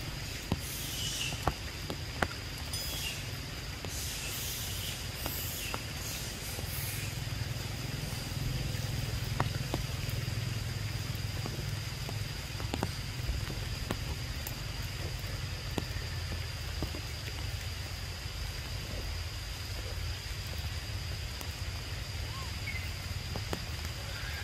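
Forest ambience in rain: a steady low rumble, a constant thin high tone, and scattered sharp ticks of falling drops. A few brief hissy bursts come in the first several seconds.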